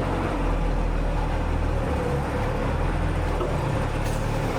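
Workshop machinery running steadily: a continuous low drone with a faint steady whine over it.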